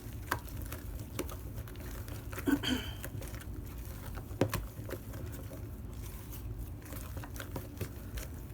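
A spatula folding and scraping a thick pumpkin and whipped-topping mixture in a mixing bowl: soft, irregular scrapes and light knocks against the bowl. There is a short louder sound about two and a half seconds in and a sharp knock about four and a half seconds in.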